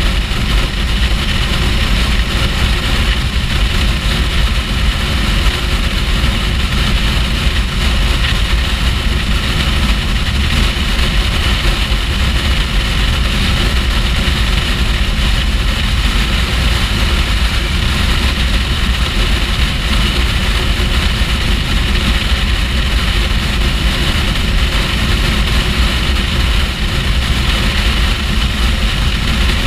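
Kawasaki Ninja H2 supercharged inline-four running at a steady motorway cruise, its drone under heavy wind rush on the bike-mounted microphone, with no change in revs.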